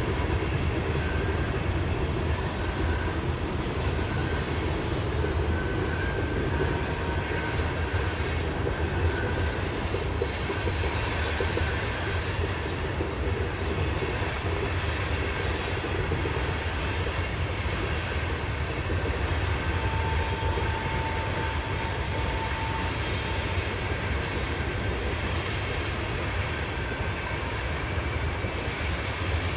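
CSX coal train rolling past, a steady rumble of wheels on rail, with thin high squeals now and then.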